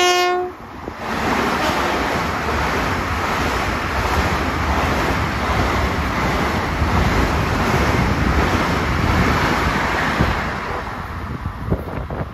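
A Long Island Rail Road electric multiple-unit train passing close at speed without stopping: the end of its horn blast about half a second in, then a steady loud rush of wheels on rail and wind that eases toward the end as the cars go by.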